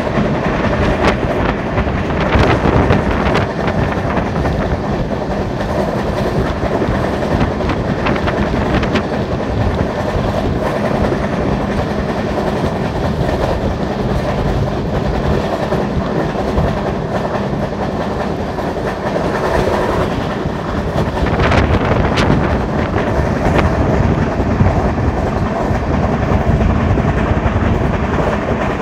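Wheels of an LHB passenger coach bogie running on the rails at about 90–110 km/h: a loud, continuous rolling rumble broken by scattered sharp clacks.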